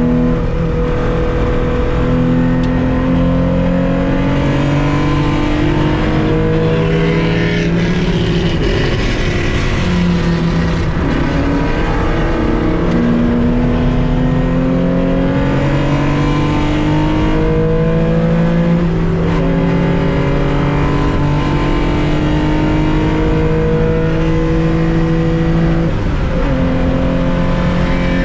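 1965 Porsche 911 2.0's air-cooled flat-six heard from inside the car under race acceleration. It revs up through the gears, its pitch climbing and then dropping at each upshift, and it falls away once for a slowdown about a third of the way in.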